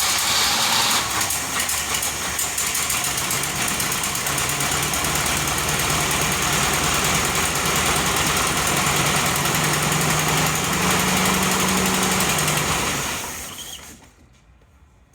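Jeep CJ engine running at a steady idle on its first start, then faltering and dying about thirteen seconds in; the owner suspects an empty gas tank, or else a failed fuel pump.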